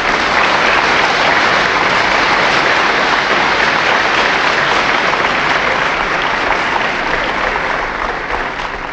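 Audience applauding: dense, steady clapping from many hands that fades off toward the end.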